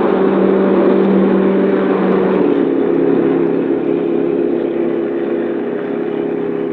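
Propeller-driven racing planes' piston engines droning steadily, with the pitch stepping down a little about two and a half seconds in and the sound slowly fading. The sound is dull and cut off at the top, as on an old film soundtrack.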